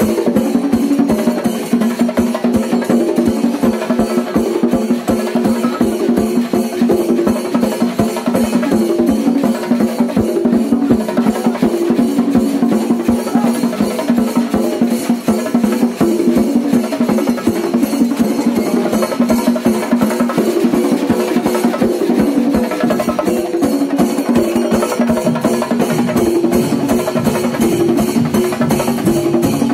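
Fast, loud live drumming: dense rolls of drum strikes over a driving rhythm, with a steady low drone and a short repeating tune beneath.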